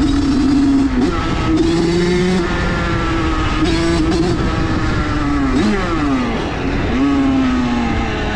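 Small motorbike engine held at high revs under way. The pitch steps up about a second in, drops and climbs again around six seconds, then falls away near the end.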